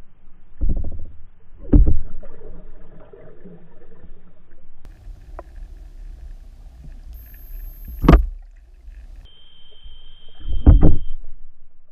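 Underwater sound picked up by a submerged camera: a low watery rumble broken by four heavy thumps, two in the first two seconds, one around eight seconds and one near the end. A thin high tone rings briefly just before the third thump and a lower steady tone just before the last.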